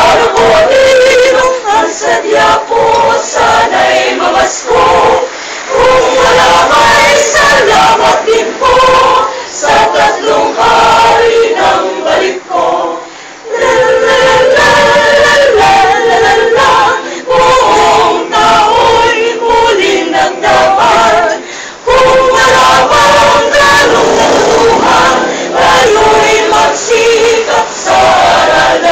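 A group of men and women singing together, the song moving in phrases broken by short pauses.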